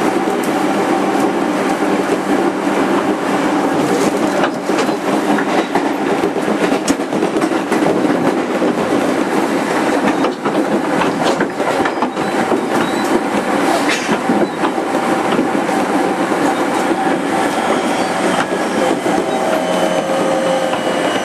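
Interior running sound of a JR 205 series 5000-subseries VVVF-inverter motor car at speed: steady wheel and rail rolling noise with scattered clicks from rail joints. Near the end a faint whine begins, falling in pitch.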